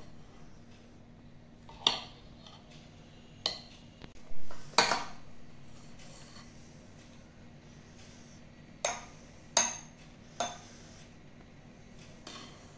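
Metal spoon clinking and scraping against a glass mixing bowl while a thick cream-and-biscuit dessert mixture is stirred and scooped. There are several separate clinks, the loudest a little before halfway and three close together about two-thirds of the way in.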